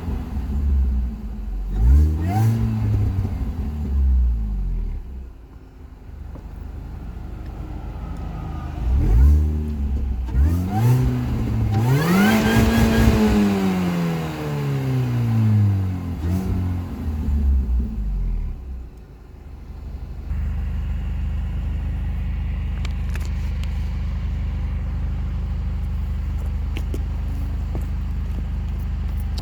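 Stock Mini Cooper S R53's supercharged 1.6-litre four-cylinder engine revved up and down several times, the longest rev in the middle with a faint high whine rising and falling with it. About two-thirds of the way in it settles to a steady idle.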